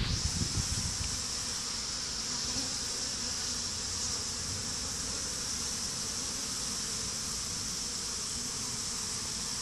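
Honey bees buzzing steadily under a hive, with a few low bumps from handling the phone in the first second.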